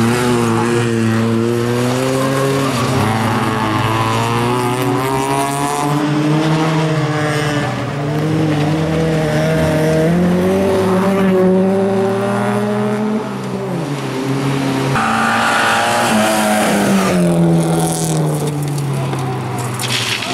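Bilcross race car's engine running hard, its pitch climbing and dropping again and again as it accelerates and lifts off, with tyre squeal and skidding mixed in.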